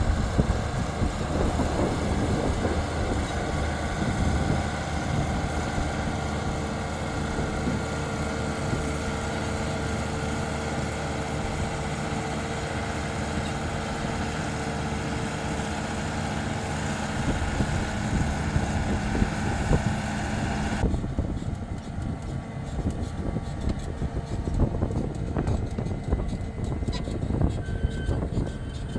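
SAME Titan 165 tractor's diesel engine running steadily under load as it pulls a drainage trencher laying corrugated drain pipe into the soil. The sound changes abruptly about 21 seconds in, to a closer take of the trencher working.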